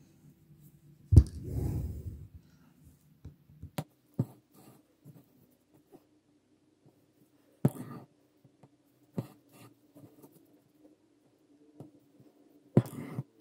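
Close-up handling sounds of hand embroidery: embroidery thread drawn through linen in a hoop and the needle working French knots, heard as scattered sharp ticks and knocks with soft scratchy rustles. The loudest knock, about a second in, is followed by a short rustle.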